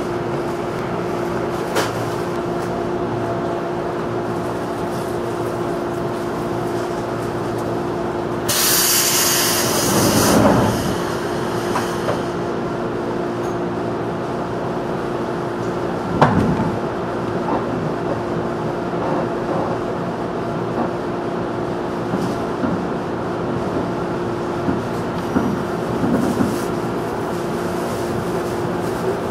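Running sound inside a JR 211 series electric train moving slowly: a steady hum with a held tone. About eight seconds in, a loud hiss of air lasts a few seconds, and a few sharp knocks come later.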